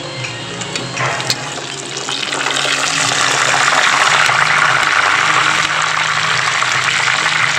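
Catfish deep-frying in a pan of hot oil, a steady sizzling and bubbling. A metal spatula taps the pan a couple of times about a second in as the fish are moved, and the sizzle then swells and stays loud.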